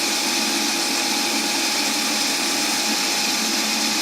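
South Bend lathe running steadily with an even motor hum while it turns a hickory shaft.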